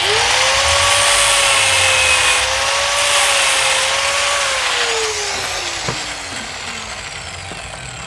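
Angle grinder starting up and cutting into a metal motorcycle gear lever: a loud hiss of disc on metal over the motor's steady whine. About four and a half seconds in it is switched off, and the whine falls away as the disc spins down.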